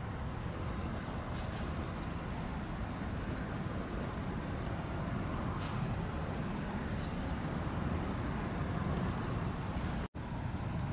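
Steady low rumbling outdoor background noise, with a brief dropout about ten seconds in.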